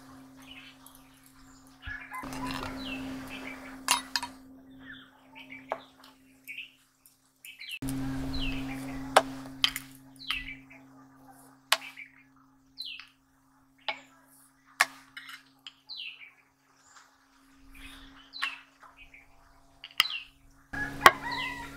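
Birds chirping over and over in short, downward-sliding calls, with scattered sharp clicks and a low steady hum that comes and goes.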